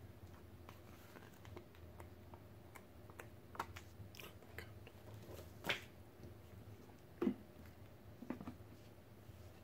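Faint handling noises of paper rule sheets and a cardboard token sheet being shuffled and set down: soft rustles and a few short taps, the loudest about halfway through and again a little later, over a low steady hum.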